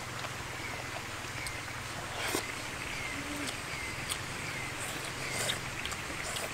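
A short chirping animal call repeated about every half second, with a few sharp clicks, the loudest about two seconds in.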